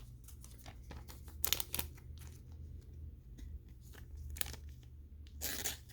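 Foil booster-pack wrappers and trading cards being handled: faint crinkling and rustling with scattered small clicks, a couple of sharper crackles about one and a half seconds in, and a low steady hum underneath.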